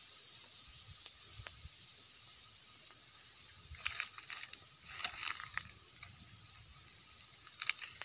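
Leaves and twigs rustling and crackling in bursts from about four seconds in, as leafy branches are handled or brush close to the microphone, over a steady high hiss.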